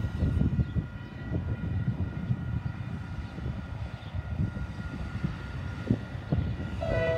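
Wind buffeting the microphone in uneven gusts of low rumble, with faint steady high tones behind it. A short two-note tone sounds a little before the end.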